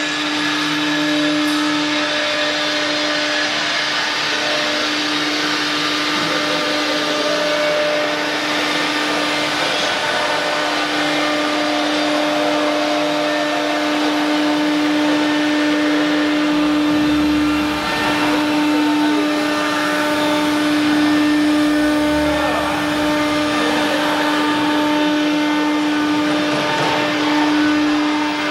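Automatic-tool-change CNC router spindle running with a steady high whine over a constant noisy rush, as from the machine cutting.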